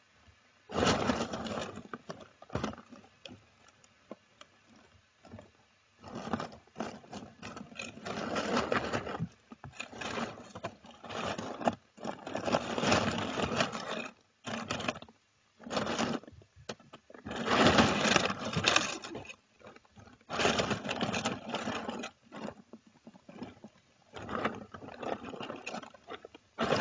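Irregular bursts of rustling and scratching, broken by short quiet gaps, as squirrels shift about in their nest.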